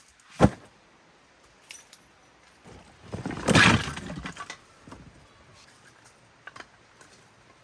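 Small hard objects being handled: a sharp knock about half a second in, then a louder burst of rattling and clinking around three and a half seconds in, followed by a few light clicks.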